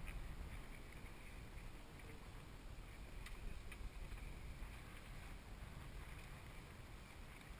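Faint, steady low rumble of wind and water around a sailing yacht at sea, with a couple of light clicks about three and a half seconds in.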